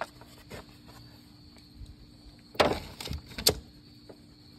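Sharp clicks and knocks of tools and parts being handled under a van's hood, mostly in a cluster about two and a half to three and a half seconds in.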